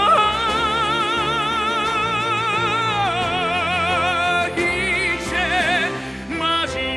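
A male musical-theatre singer belts a long, high note with wide vibrato over an orchestral backing track. About three seconds in he drops to a lower held note, then moves into shorter sung phrases.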